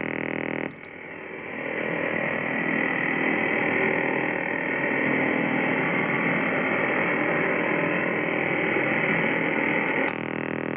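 Icom IC-R71E shortwave receiver in LSB: the buzz of a Russian over-the-horizon radar cuts off with a click about a second in as the noise blanker is switched in, leaving steady band hiss and static. Near the end another click brings the radar buzz back.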